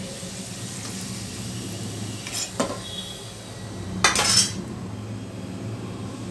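Steel ladle clinking and scraping against a steel kadai of hot frying oil: two light taps about two and a half seconds in and a louder clatter about four seconds in, over a faint sizzle of the oil and a steady low hum.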